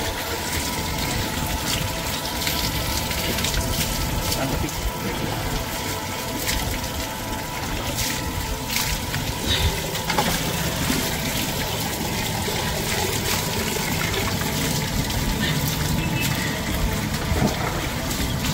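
Water running and splashing steadily onto a wet dog's coat and a tiled floor during a bath, with a steady hum underneath.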